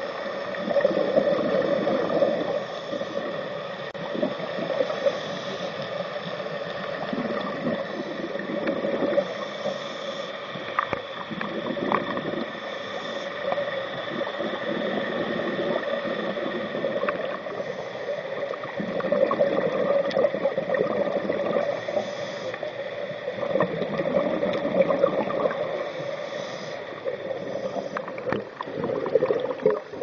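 Underwater sound picked up by a diving camera: a steady gurgling water rush that swells and fades every few seconds.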